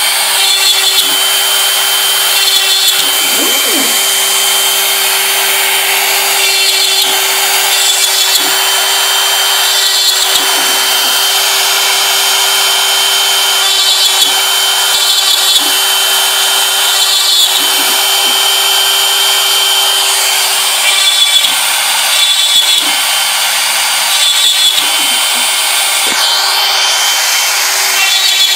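Bosch Colt trim router on a CNC machine, its motor whining at a steady high pitch while the bit cuts through bamboo board. The harsh cutting noise swells and dips every second or two as the bit works along the cut.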